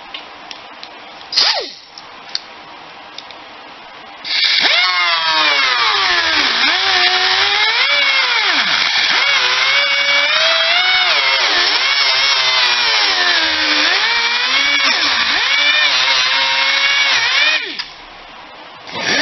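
Power tool with a cutoff wheel cutting through a fiberglass console panel: a brief burst about a second in, then from about four seconds in a loud whine whose pitch repeatedly sags and recovers as the wheel bites into the fiberglass. It stops shortly before the end and starts again at the very end.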